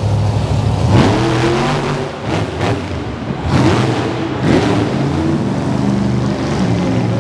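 Monster truck engine running loud and revving up hard three times, the pitch climbing with each burst of throttle, as the truck is pulled into a wheelie.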